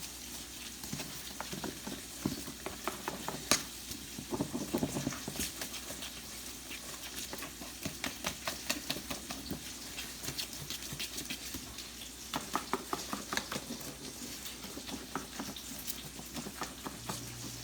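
Thick buttermilk pancake batter being whisked in a mixing bowl: a steady stream of quick wet scrapes and light ticks of the whisk against the bowl.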